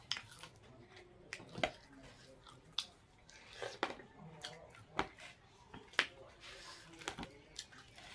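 Chewing cooked chicken leg meat: irregular sharp clicks and smacks of the mouth eating, with fingers picking meat off the bone on the plate.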